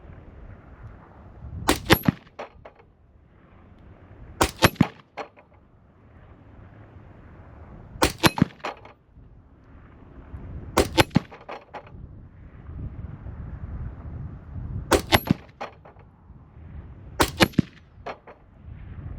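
Six single shots from a Palmetto State Armory PA-15 AR-15 rifle chambered in .223 Wylde, fired slowly, two to four seconds apart, each with a short ringing tail.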